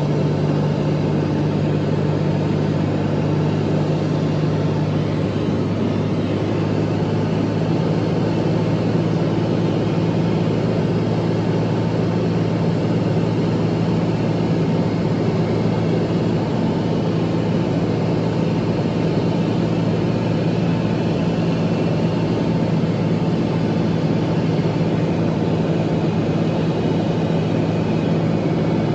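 Single-engine propeller plane's engine and propeller droning steadily, heard inside the cockpit with a wash of airflow noise, on final approach to landing. The engine note shifts slightly about five seconds in.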